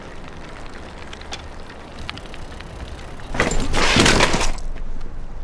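A bicycle crashing to the ground as it is kicked out from under its rider: a loud clattering crash lasting about a second, starting a little past three seconds in, over a low steady rumble.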